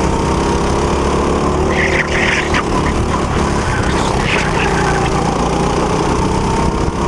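Go-kart engine running hard, heard onboard from the driver's seat, its pitch rising and falling slightly through the corners. Short high-pitched squeaks come about two seconds in and again about four seconds in.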